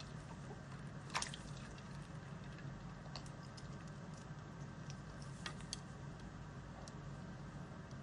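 Scattered small clicks and wet taps from an African grey parrot playing in a dish of ice and water, the loudest about a second in and again about five and a half seconds in, over a steady low hum.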